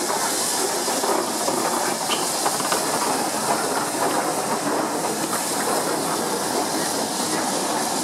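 J27 0-6-0 steam locomotive moving slowly past at close range, with steady hissing of steam and a few faint clicks from its wheels on the track.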